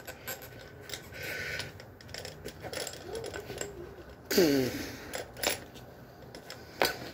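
Bicycle tire being worked on its rim by hand with a tire lever: rubber rubbing and scraping against the rim, with small clicks and taps. About four seconds in, a short groan that falls in pitch.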